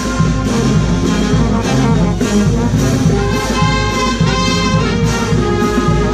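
Instrumental background music led by brass instruments, playing steadily over a continuous bass line.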